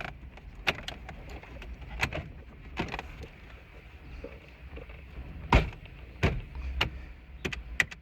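Irregular clicks and knocks, about a dozen, the loudest about five and a half seconds in, from hands handling parts and connectors in a car dash during a radio install. A steady low hum runs underneath.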